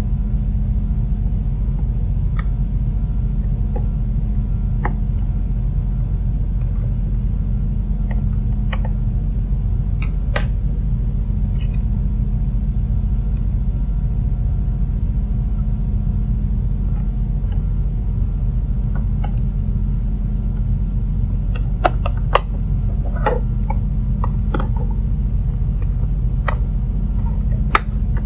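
Small clicks and taps of plastic parts and a screwdriver as an LED bulb's LED panel and diffuser cover are fitted back together. The clicks are sparse at first and bunch up about three quarters of the way through, over a steady low hum.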